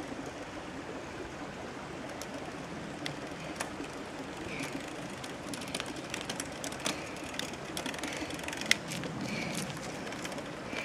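A child's bicycle rolling closer over a gritty lane: tyres crunching on grit and the bike ticking and rattling, the clicks coming more often as it nears, with one sharp click about three-quarters of the way through, over a steady rushing background.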